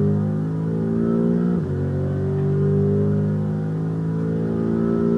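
BMW M5 CS twin-turbo V8 at full throttle, its pitch climbing steadily through fourth gear, dropping sharply at a quick upshift into fifth about a second and a half in, then climbing again.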